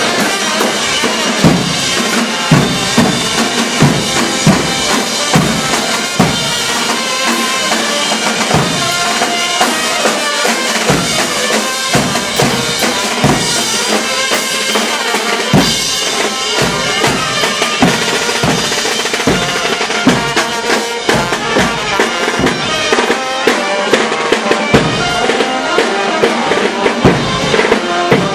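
Festival street band playing: big bass drums beaten in a steady rhythm under a trumpet and other wind instruments carrying a folk tune.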